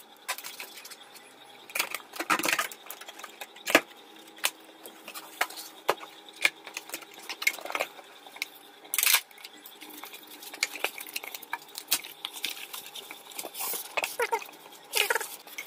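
Packaging of a soundbar being handled and opened: scattered clicks, taps and knocks with short bursts of rustling, the sharpest knock nearly four seconds in.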